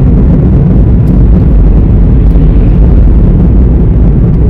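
Loud, steady low rumble of a car being driven, heard from inside the cabin: road and engine noise.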